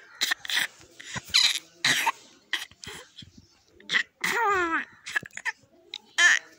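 Infant making short, rough, cough-like noises, then a brief cry that falls in pitch about four seconds in, with another short one near the end.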